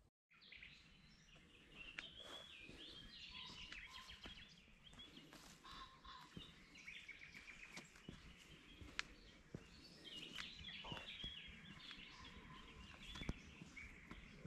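Faint birdsong: several small birds chirping and singing in short repeated phrases over a low steady background, with scattered light ticks.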